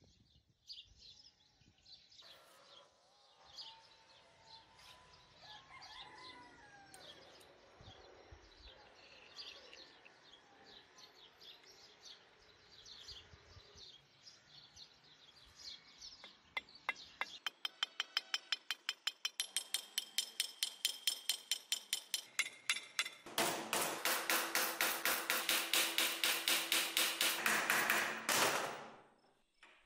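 Small birds chirping over a faint outdoor background. In the second half a fast, even run of sharp ticks starts up and builds into a loud, rapid series of ringing strikes, about six a second, that stops shortly before the end.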